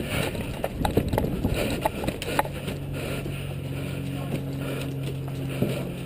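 Quick footsteps on dirt and the knock and rattle of gear as players run, then a steady low hum from about halfway through.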